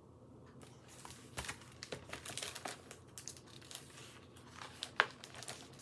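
Pages of a picture book being handled and turned: soft paper rustling with a string of light taps and clicks, the sharpest about five seconds in.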